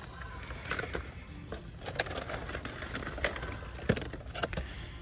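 Irregular light clicks and crackles of blister-packed die-cast cars being handled and slid along store pegs, over a low steady hum.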